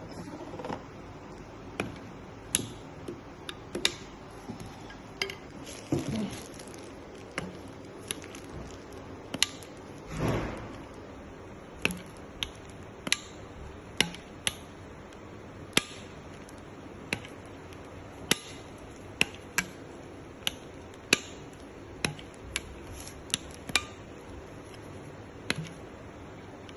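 Irregular sharp clicks and knocks of hard objects being handled and set down, roughly one a second. A longer scraping sound comes about ten seconds in.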